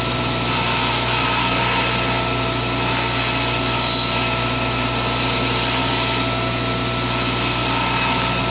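Table saw running, its blade shaving the edge of a wooden circle blank as the piece is turned and pushed forward in small steps. The cutting noise swells and eases every second or two over the saw's steady hum.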